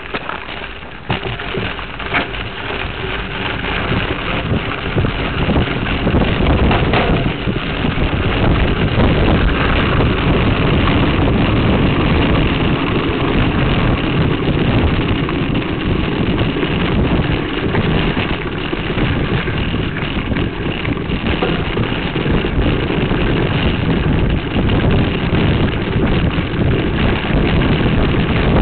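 Wind buffeting and rattling vibration picked up by a Veho Muvi action camera rear-mounted on a mountain bike being ridden. The noise rises over the first few seconds as the bike gets up to speed, then stays loud and steady with a constant jittery rattle.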